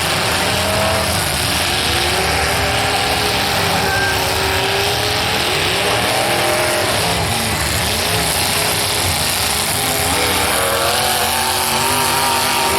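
Demolition derby cars' engines running and revving hard, several at once, rising and falling in pitch over a steady din.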